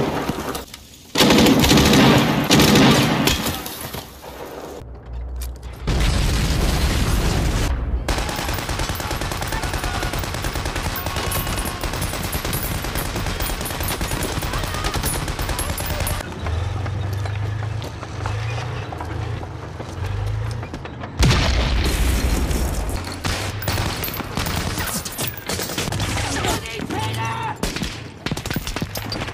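Film battle soundtrack of WWII combat: continuous rifle and machine-gun fire, with sudden loud blasts about a second in and again about twenty seconds in.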